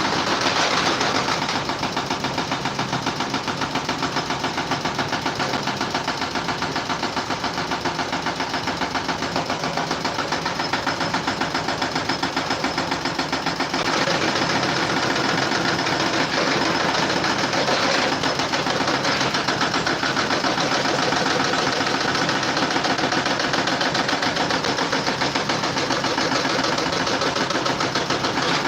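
A motorized machine running steadily with a rapid, even pulsing that goes on without a break.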